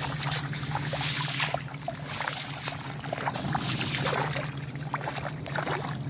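Storm water splashing and swirling, with many irregular sharp little hits over a steady low hum.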